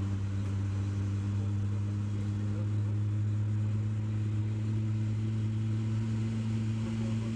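An engine running steadily at idle, a low even hum that holds one pitch throughout.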